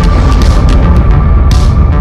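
Loud electronic soundtrack music with heavy bass, held synth tones and sharp percussive hits on the beat.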